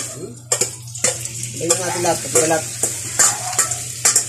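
Metal spatula scraping and knocking around a wok as chopped beef innards are stir-fried, the meat sizzling in the hot pan.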